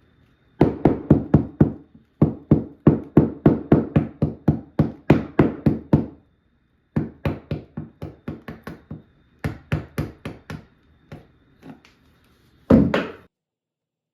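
Wood chisel struck rapidly with a mallet, chopping out a mortise in the edge of a wooden door: runs of sharp knocks about five a second, broken by short pauses, with one longer crunching strike near the end.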